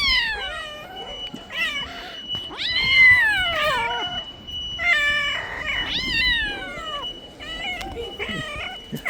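Cat meowing over and over in long, drawn-out calls that fall in pitch, the longest and loudest about three seconds in.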